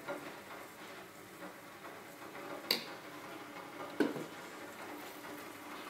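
Metal spoon clinking against enamel pots while batter is spooned out: two sharp clinks, a little under three seconds in and again about four seconds in, over faint steady room noise.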